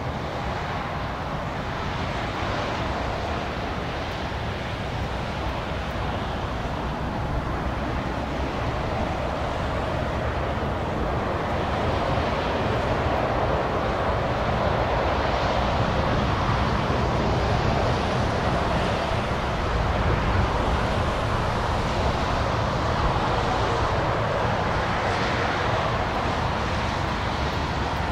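Twin turboprop engines of a Beechcraft King Air landing and rolling out on the runway, a steady rushing engine noise that grows louder about halfway through as the aircraft touches down and approaches.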